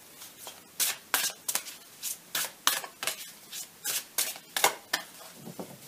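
Lenormand playing cards being handled, shuffled and laid out on a table: a run of quick, irregular card swishes and snaps, two or three a second, with a duller, lower sound near the end.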